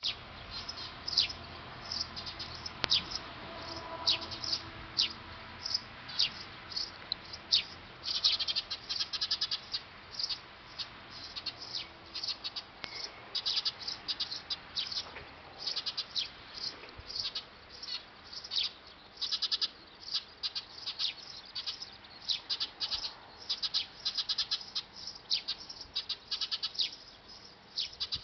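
Eurasian tree sparrows chirping at their nest: many short, high chirps, single ones mixed with quick runs of rapid chirping.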